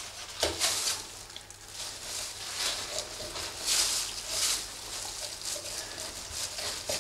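Handling noise from boning a pork shoulder by hand: irregular rustling and scraping of plastic-gloved hands and a small knife working through the raw meat on a steel table, with a soft knock about half a second in. A low steady hum runs underneath.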